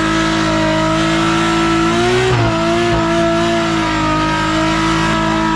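Nissan 240SX drift car doing a burnout: the engine is held at high, steady revs while the rear tyres spin in place. Its note wavers briefly about two seconds in.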